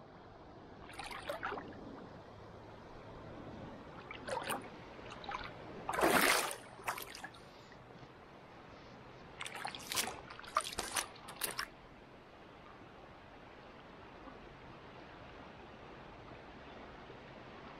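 Flowing river water with several short splashes and sloshes. The loudest splash comes about six seconds in, and a quick cluster follows around ten to eleven seconds.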